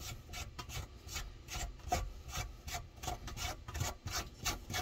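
Plastic mounting nut of a kitchen faucet being turned off its threaded shank by hand: a string of short, irregular scraping clicks from the threads and the hand rubbing on them.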